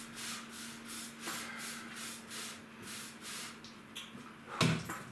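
Rhythmic scrubbing in a kitchen sink, about three strokes a second, fading out after about three seconds; a single loud knock near the end, as of an object set down on the counter.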